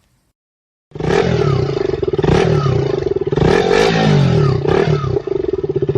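A motorcycle engine revving hard, its pitch swooping up and down, starting abruptly about a second in and cutting off sharply.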